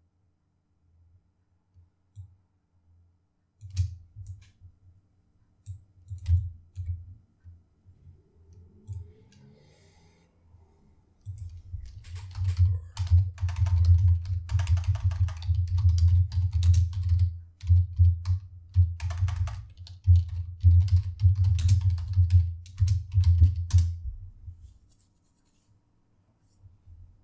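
Typing on a computer keyboard close to the microphone, each keystroke with a dull low thud under the click. There are scattered keystrokes at first, then a long run of fast continuous typing that stops a couple of seconds before the end.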